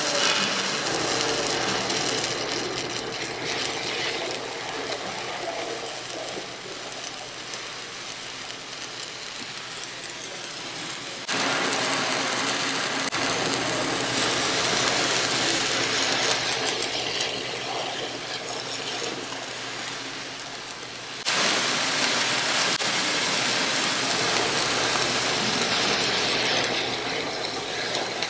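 Stick (shielded metal arc) welding with a 7018 low-hydrogen electrode: the arc crackles steadily as a horizontal fill stringer is run along a groove weld. The level steps up abruptly about 11 and 21 seconds in.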